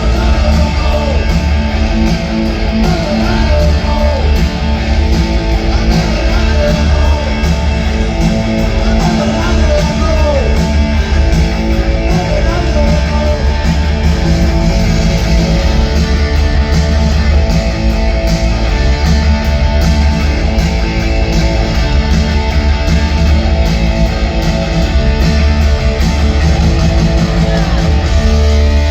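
Live punk rock band playing loud, with distorted electric guitar strumming over bass and drums and no singing.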